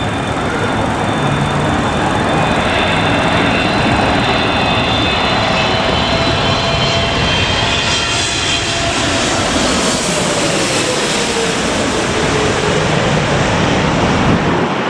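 Twin-engine wide-body jet airliner on final approach passing low overhead, its engines a loud steady roar. An engine whine falls in pitch as it goes over, about halfway through.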